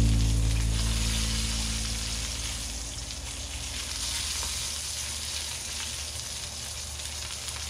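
Wild boar meat frying in a pan: a steady sizzle. Background music fades out over the first couple of seconds.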